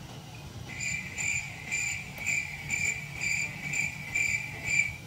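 Cricket chirping in an even run of short pitched chirps, about two a second, over a low steady hum.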